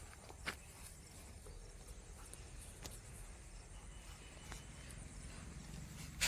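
A few scattered sharp clicks or taps, the loudest near the end, over a low steady rumble.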